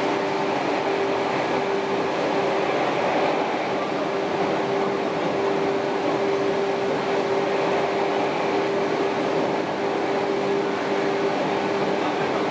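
Cabin noise of a 413/455-series electric multiple unit running at steady speed: rail and running-gear rumble with the MT54 traction motors, and a steady single-pitched hum throughout.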